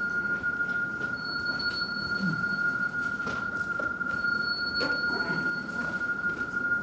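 Electronic stage score of sustained tones: a steady high tone, with a higher, bell-like tone sounding twice for about a second and a half each, roughly three seconds apart.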